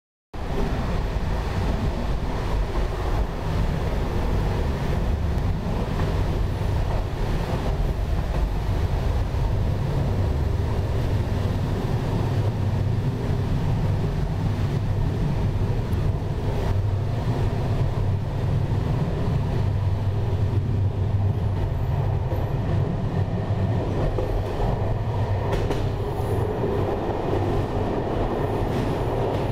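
A train running along the track at speed: a steady low rumble of wheels on rails, with a few faint clicks from the rail joints. Near the end the sound changes as the train runs onto a bridge.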